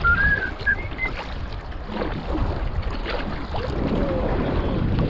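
Kayak paddle strokes dipping and splashing in the water, with wind buffeting the microphone. A few whistled notes are heard in the first second.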